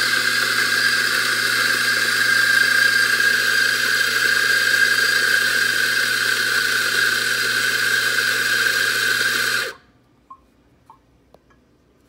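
Mazzer Mini Electronic flat-burr espresso grinder running steadily as it grinds a timed double dose of about 18 grams of coffee, with a steady high whine over a low hum; it stops abruptly by itself near the end.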